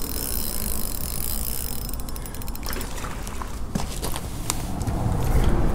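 Spinning reel being cranked steadily as a hooked crappie is reeled in, stopping about two and a half seconds in. Scattered clicks and knocks follow as the landing net is handled.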